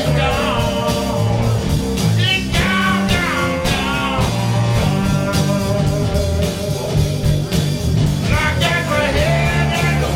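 Live rock band playing, with drums, bass and a lead line that bends up and down in pitch.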